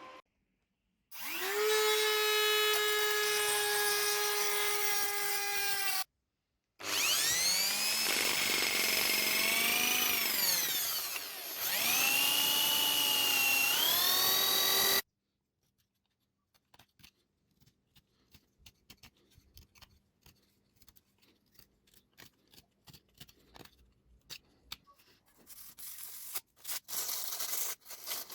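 Electric power tool working steel: a high motor whine with a stack of tones, its pitch sagging and recovering as it bites under load, starting and stopping abruptly twice. After about 15 seconds it stops, leaving faint scattered taps and scraping that grow louder near the end.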